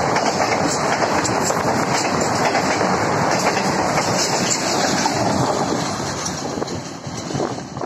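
Express train passenger coaches rushing past at speed without stopping: a steady loud rolling rush of steel wheels on rail with repeated clicks, fading in the last second or two as the train draws away.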